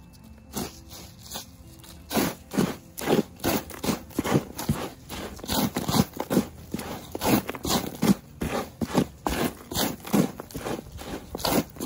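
Hands scooping and mixing dry potting mix of peat, perlite and orchid bark, an irregular run of crunching and scraping strokes that starts about two seconds in.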